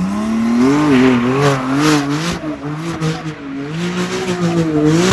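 Porsche 911 Turbo's twin-turbo flat-six revving hard while drifting, its pitch rising and falling in waves as the throttle is worked, with the rear tyres squealing and spinning against the tarmac.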